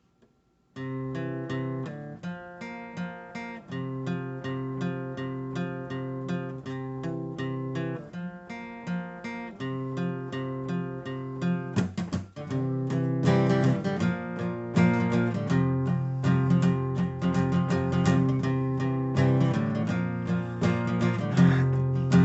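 Acoustic guitar strumming chords in a steady rhythm, the instrumental intro of a song, starting about a second in and growing fuller and louder about halfway through.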